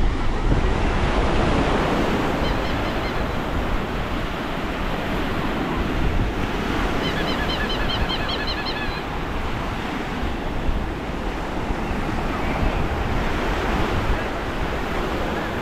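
Gentle surf washing onto a sandy beach, with wind blowing across the microphone. A quick run of high chirps comes twice, briefly at about two and a half seconds and again for about two seconds around the middle.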